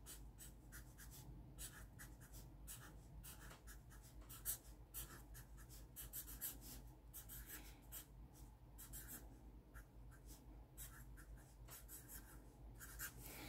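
A Sharpie felt-tip marker writing in block capitals on paper: faint, short strokes of the tip across the sheet, one after another.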